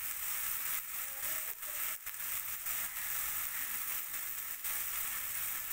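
Onion and tomato spice paste sizzling steadily in hot oil in a wok.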